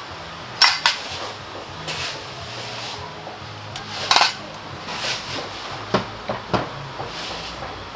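Metal tools clinking and knocking against metal: a handful of sharp clinks, the loudest about half a second in and about four seconds in, with smaller ones around six seconds.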